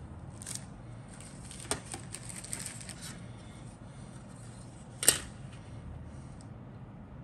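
Grey plastic model-kit sprue being handled: rustling and light clicks of the plastic parts, then a sharper clack about five seconds in as the sprue is laid flat on a cutting mat.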